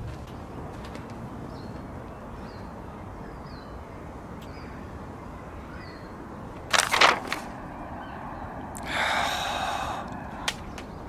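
Outdoor woodland ambience with a small bird chirping faintly several times, then a sharp crackle of a paper map being handled, followed about a second later by a longer breathy rustle.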